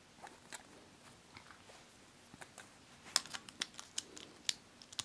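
Small clicks and ticks of Beyblade parts being handled and fitted back together into one top, with a run of sharper clicks about three to four and a half seconds in.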